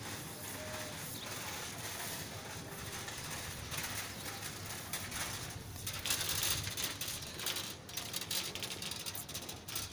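Outdoor ambience of footsteps on paving with birds calling, and some rustling close to the microphone in the second half.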